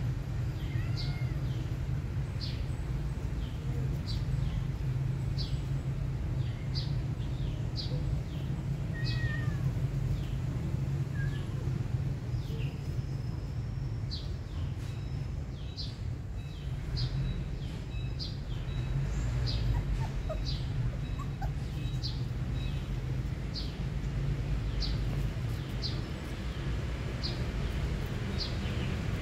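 A small animal's short, high-pitched squeaks, repeated about once a second, over a steady low hum.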